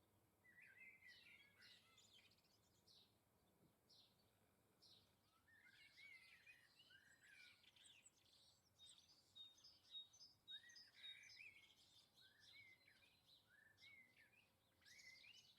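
Small garden birds chirping and twittering, faint, with overlapping short calls and a run of short, evenly spaced high notes in the middle.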